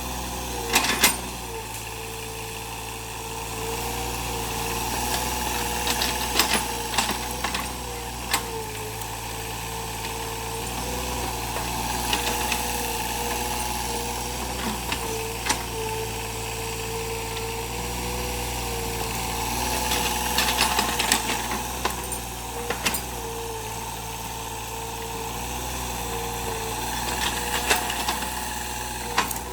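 Excavator's engine running steadily, with a wavering whine and scattered sharp clanks and knocks.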